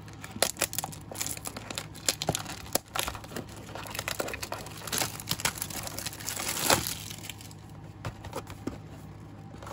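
Plastic shrink wrap being torn and peeled off a cardboard box of trading cards: a run of crinkling and crackling, with louder bursts about five and seven seconds in.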